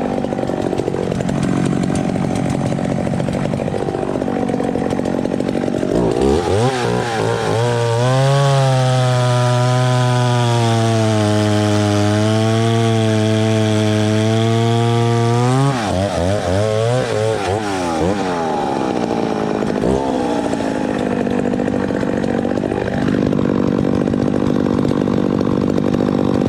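A vintage two-stroke chainsaw running. It revs up about six seconds in, holds high revs for about eight seconds, then drops back suddenly and runs at lower, varying speed.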